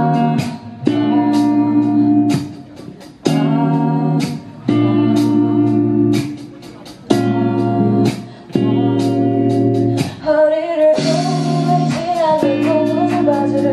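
Live band playing a song intro of sustained chords that start together and break off every second or so, with guitar among the instruments; about ten seconds in, a woman begins singing over the band.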